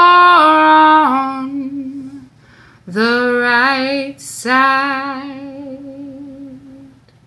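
A woman singing in a southern gospel style with no accompaniment, holding long notes with vibrato. After a short break she sings two more drawn-out phrases, with an audible breath between them. The last note fades away near the end.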